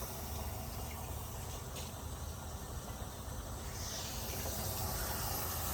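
Water from a hose running into a barrel, a steady hiss that holds without a break.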